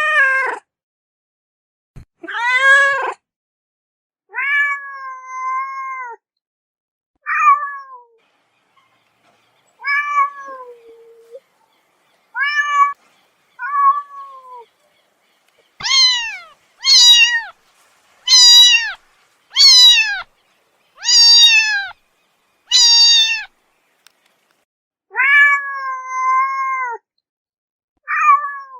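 A cat meowing again and again, each meow a separate drawn-out call that rises and then falls in pitch. Past the middle comes a run of six louder, higher meows in quick succession.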